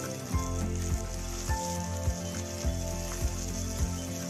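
Chopped okra sizzling in a little hot oil in a kadai as it is stirred with a wooden spatula, under background music with a steady beat of just under two beats a second.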